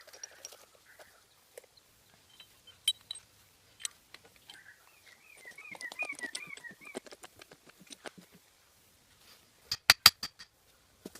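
A bird calling with a quick warbling call for about two seconds midway, among scattered light clicks and knocks; a few sharp knocks come near the end.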